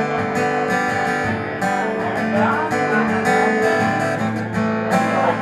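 Acoustic guitar strummed steadily in rhythm, chords ringing, with no singing.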